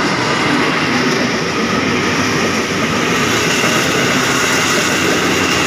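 KAI Commuter (KRL Commuterline) electric train running past close by as it pulls out of the station: a loud, steady rumble of wheels on rails.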